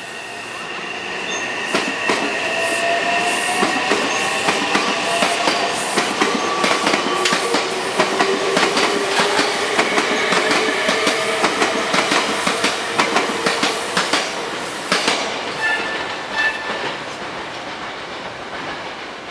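A train passing, its wheels clacking rapidly over the rail joints, with whining tones that slide slowly in pitch. It builds over the first few seconds and fades away near the end.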